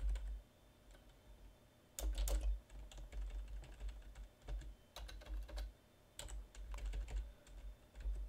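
Typing on a computer keyboard: clusters of quick key clicks in short bursts, starting about two seconds in after a brief pause.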